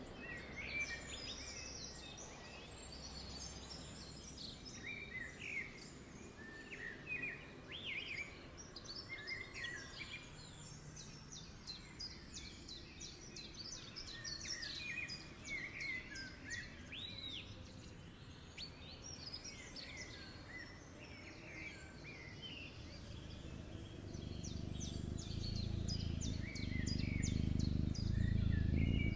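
Small birds chirping and trilling in quick, overlapping calls throughout, over a low steady hum that grows louder in the last few seconds.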